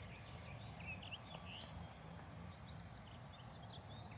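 Faint, scattered chirps and short calls of distant songbirds over a steady low rumble of wind on the microphone.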